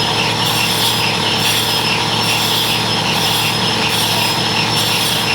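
Concrete mixer running steadily, with a faint regular pulse about once a second.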